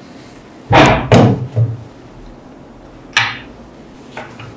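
A twin-cartridge respirator mask and glasses being set down on a wooden bench top. There are two loud thuds about a second in with a lighter knock just after, a sharper clack about three seconds in, and a faint tap near the end.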